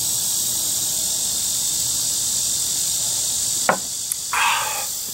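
Steady, high-pitched chorus of insects. About three and a half seconds in there is a single sharp knock, followed by a short rustle.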